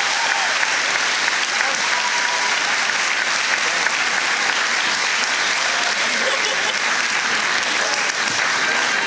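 A large audience applauding steadily, with some voices mixed in.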